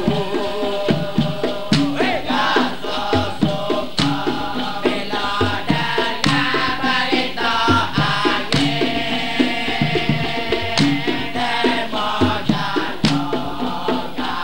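Dikir music: a chorus of voices singing together over a steady beat of percussion strikes.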